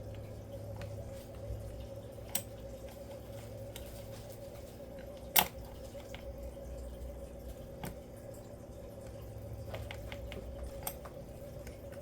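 Keyboard keycaps being worked off and pressed onto the switches: scattered sharp plastic clicks, a few seconds apart, one much louder than the rest about five seconds in. A steady hum runs underneath.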